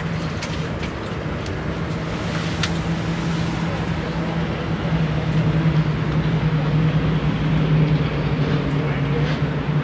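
A steady engine hum, growing a little louder in the second half.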